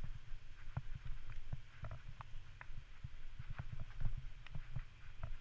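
Muffled low rumble with irregular clicks and knocks: a bike-mounted GoPro in its housing jolting as the bicycle rides over a rough, muddy towpath.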